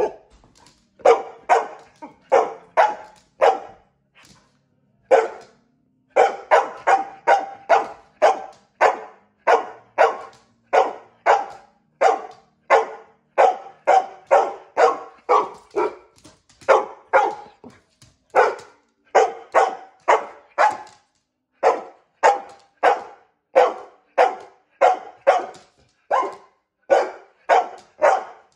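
Large brown dog barking over and over, short loud barks at roughly two a second, with a brief pause about four seconds in. She is barking in protest at being brushed.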